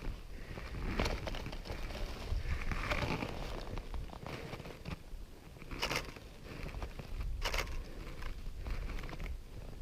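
Footsteps crunching and scuffing on a trail with patches of snow, with rustling handling noise and two sharp clicks, the first about six seconds in and the second a second and a half later. A low rumble of wind on the microphone runs underneath.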